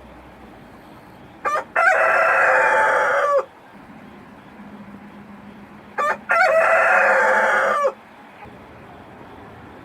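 Rooster crowing twice, about four and a half seconds apart. Each crow is a short opening note followed by a long held call that drops in pitch at the end, over a faint steady hiss.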